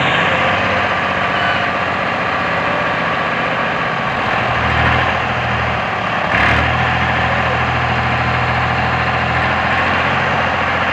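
Tractor diesel engine running steadily as its hydraulics tip up a trolley loaded with soil, with one clunk about six seconds in.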